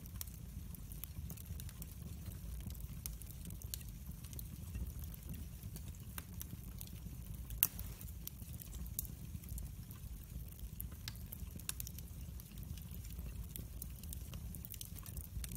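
Split wood logs burning in a fireplace: scattered crackles and snaps over a steady low rumble, with one louder pop about halfway through.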